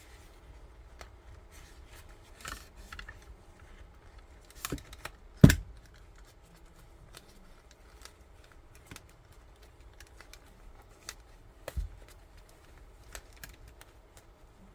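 Scattered small clicks and rubbing of plastic parts as a headphone's plastic housing piece is worked back into place, with one louder click about five and a half seconds in.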